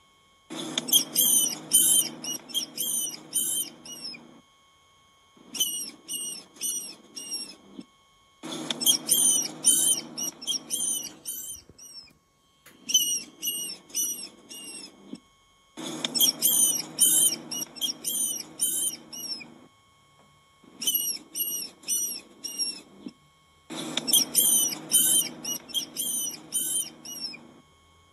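Small rodent squeaking: rapid high-pitched squeaks, several a second, in runs of a few seconds broken by short pauses, the pattern repeating like a looped recording.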